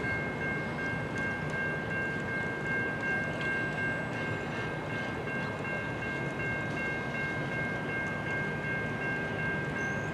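Freight train rolling past with a steady rumble, overlaid by a constant high-pitched squeal of several tones that holds unchanged throughout.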